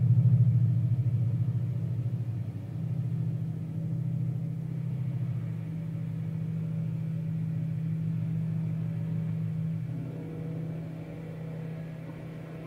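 Experimental ambient piece built from outdoor ambience recorded through an apartment window and filtered in real time: a steady low drone that thins out and drops in level over the last few seconds.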